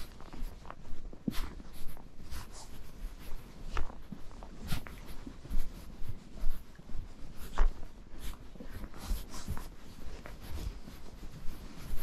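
A horse's hooves crunching and thudding in packed snow, an uneven run of steps with sharper crunches every second or so.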